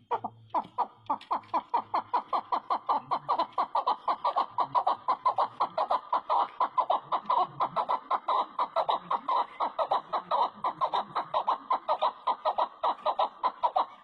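Chukar partridge calling: a rapid, steady series of short chuck notes, about five a second, that stops abruptly near the end.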